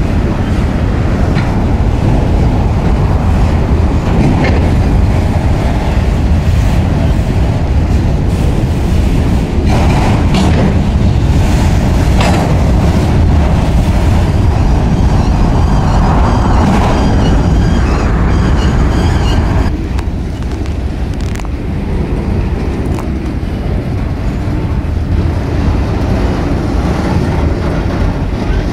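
Freight train of autorack cars rolling past close by: a steady loud rumble of steel wheels on the rails, with scattered clanks and knocks from the cars. The rumble eases slightly about twenty seconds in.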